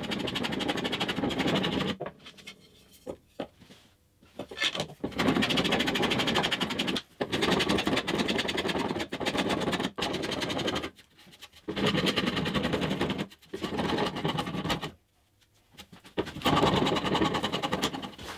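Hand plane cutting a board of partially air-dried Atlantic cedar in repeated rasping strokes, six bouts of one to four seconds with short pauses between them. The plane is taking down the high spots to flatten the board's face.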